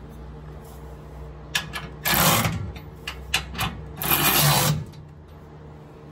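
Milwaukee cordless ratchet running in two short bursts about two seconds apart, tightening the bolts of a frame-mounted camper tie-down bracket. Light clicks come before and between the bursts.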